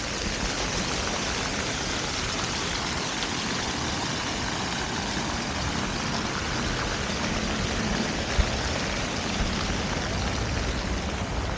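Steady outdoor ambient noise with a low rumble underneath, and a single short knock about eight seconds in.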